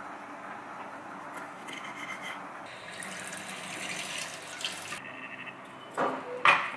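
Tap water running hard into a stainless-steel sink over a pan of cooked spaghetti being drained, stopping abruptly. Near the end come two loud sharp knocks as a glass jar of pasta sauce is handled.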